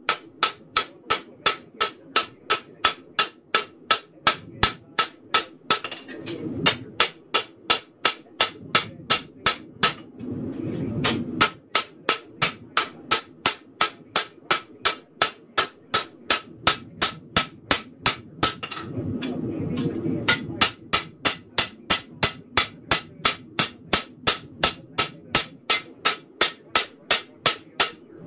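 A hand hammer striking a red-hot 1084 high-carbon steel knife blade on an anvil, about two blows a second, each with a bright metallic ring. The blows come in four runs, broken by three short pauses that hold a low rushing noise.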